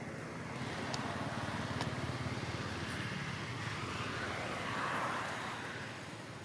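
A passing road vehicle: a steady rushing noise that builds about half a second in and fades near the end.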